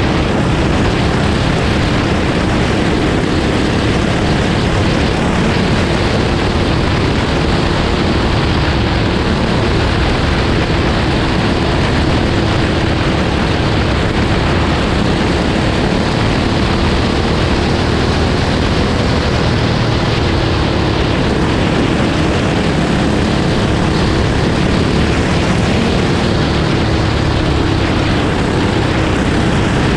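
Dirt-track racing kart's engine running hard at speed, heard from a GoPro mounted on the kart, its pitch wavering a little as the kart goes through the turns, over a constant rush of noise.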